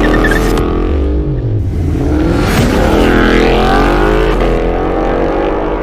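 2019 Ford Mustang GT's 5.0-litre V8 with an AWE Touring cat-back exhaust, accelerating hard. The revs climb, dip briefly about a second and a half in, then climb again.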